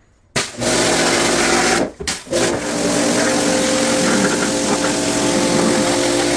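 A motor-driven machine or tool starts suddenly and runs loudly and steadily with a constant hum. It cuts out briefly about two seconds in, then starts again.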